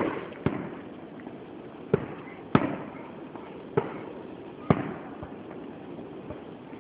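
Fireworks display: aerial shells bursting in a series of about six sharp bangs, roughly one every second, each followed by a short echoing tail.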